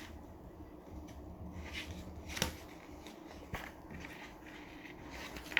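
Quiet room noise with a few light clicks and rustles: one about two and a half seconds in, another about a second later, and a sharper one near the end.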